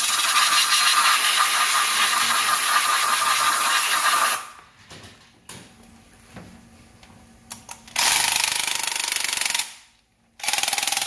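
A long steady hiss for about four seconds. After a pause, a cordless impact driver hammers in two short bursts, undoing a fastener on the rear-shock preload adjuster's pump housing.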